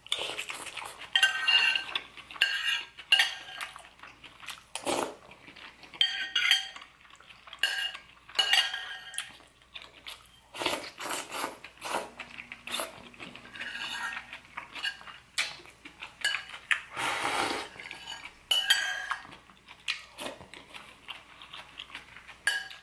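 Metal spoon repeatedly clinking and scraping against a ceramic soup bowl while soup is spooned up, some strikes leaving a brief ring.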